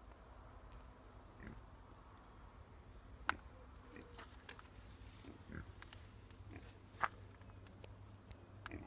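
Pigs grazing, giving a few short, soft grunts, with scattered faint clicks and two sharper clicks about four seconds apart.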